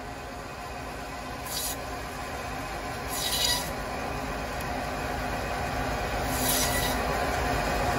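Meat band saw running with a steady hum as camel meat and bone are fed through its blade, with three short cutting sounds: about a second and a half in, about three seconds in, and past six seconds.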